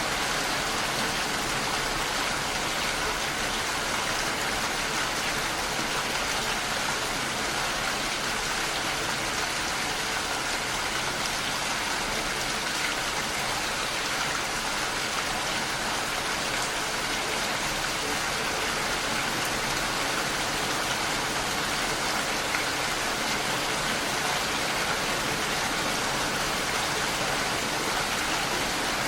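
Steady rain falling, an even hiss with no breaks or thunder.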